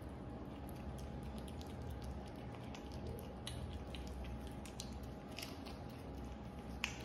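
A kitten licking paste from a squeeze tube of lickable cat treat: irregular small wet clicks and smacks of its tongue and mouth, over a low steady hum, with one sharper click near the end.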